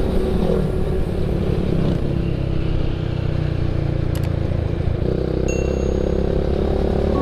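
Yamaha MX King motorcycle engine running steadily while under way, its note shifting slightly about five seconds in.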